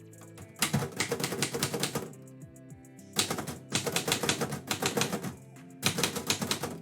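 Typewriter keys struck in three quick runs of rapid clacking, with short pauses between them. Soft background music plays throughout.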